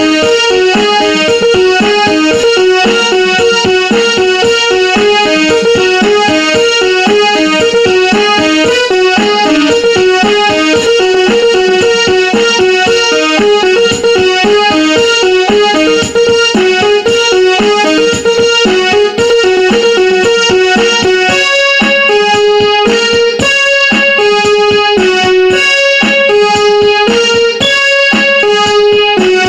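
Yamaha portable keyboard played with both hands in a piano-like voice: a busy, fast repeating figure of notes that thins out to sparser, more spaced notes about two-thirds of the way through.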